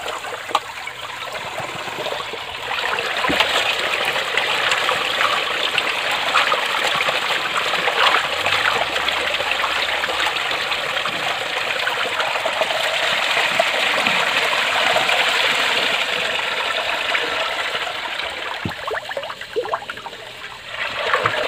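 Water trickling and sloshing as rice is washed by hand in a large aluminium basin, the cloudy rinse water pouring off over the rim, with scattered light clicks of hands and grains against the metal.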